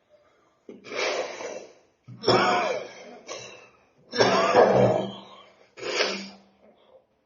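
A person in a coughing fit: five loud bouts of coughing in quick succession, some with a hoarse voiced edge.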